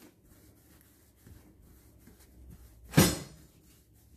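Palms rolling a log of dough back and forth on a wooden board: a faint, soft rubbing. About three seconds in there is a single sharp knock, much louder than the rubbing, that dies away quickly.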